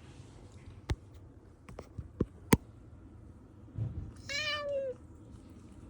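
A cat meowing once, a single drawn-out call about four seconds in, after a few sharp clicks a second or two earlier. It is meowing just after its first bath, shortly before it bolts.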